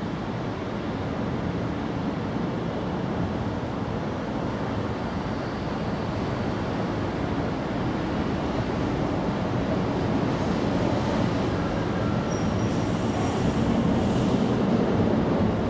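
Steady rumble of a passing vehicle that slowly grows louder and eases off near the end.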